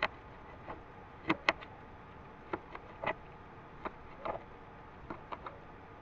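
Kitchen knife chopping green onion leaves on a tabletop: irregular sharp taps, a pair of louder ones about a second and a half in.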